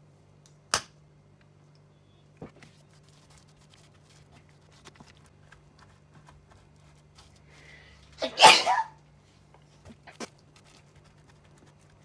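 One loud sneeze about eight seconds in, just after black pepper has been shaken over the food. Before it, a sharp click about a second in and faint ticks of chopsticks stirring in a plastic container.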